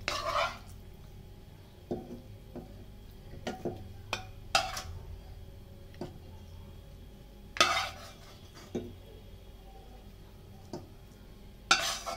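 A spoon knocking and scraping against a steel cooking pot and serving bowl as pieces of chicken curry are spooned onto rice, in scattered clinks one to a few seconds apart, a few louder than the rest, over a faint steady low hum.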